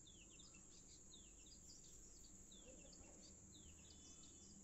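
Near silence: faint short falling chirps of a small bird, repeated about twice a second, over a steady high insect trill.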